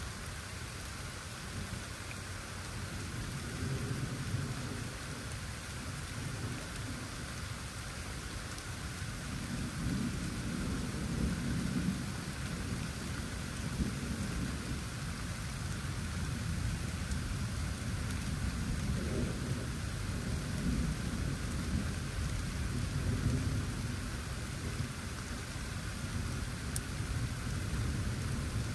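Steady rain falling, with distant thunder rumbling low underneath and swelling several times.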